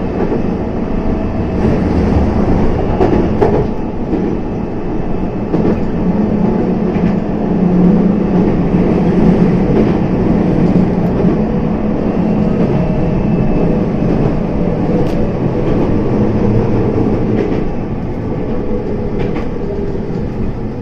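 Kobe Electric Railway electric commuter train running between stations, heard from inside the rear car. It makes a steady rumble of wheels on rail with a low hum, and the odd sharp click as the wheels cross rail joints.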